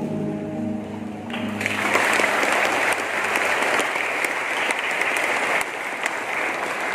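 A held chord of the music dies away, then a large congregation applauds, the clapping starting about a second and a half in and going on steadily.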